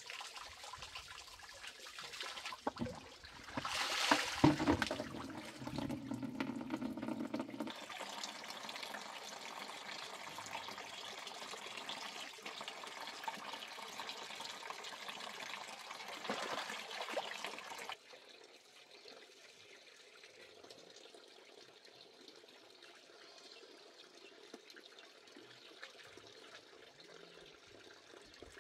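Water pouring from a bamboo pipe and splashing into a basin as food is rinsed by hand under the stream, with a louder stretch about four seconds in. A little over halfway through, the running water stops and only faint outdoor background remains.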